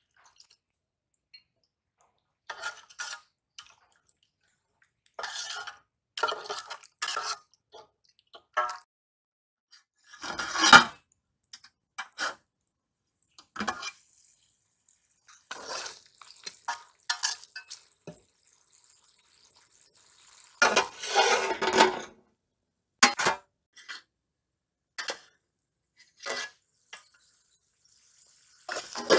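Stainless steel cooking pot, lid and long spoon clinking and scraping in a series of separate bursts as the curry is covered, uncovered and stirred.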